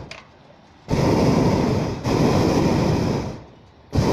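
Hot-air balloon's propane burner firing in blasts: one blast of about two and a half seconds starts about a second in, and another begins just before the end. Each blast starts and stops abruptly.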